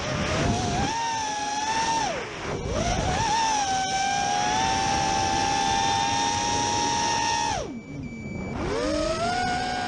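FPV racing quadcopter's brushless motors and propellers whining at speed, heard from the onboard camera. The pitch drops twice as the throttle is cut, once about two seconds in and once near the end while the quad is upside down in a flip, then rises again as the motors spool back up.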